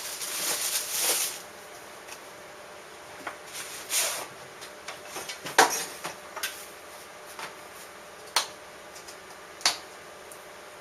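Objects being handled at a workbench. It starts with about a second and a half of scraping and rustling, then comes a run of scattered clicks and knocks. The sharpest knock is a little past halfway, with two more near the end. No machine is running.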